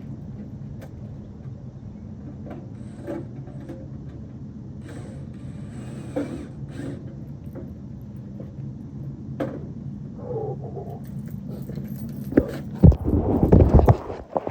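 Air conditioner running with a steady low hum, with scattered clicks and light rattles over it. Near the end come loud scraping and knocking sounds close up.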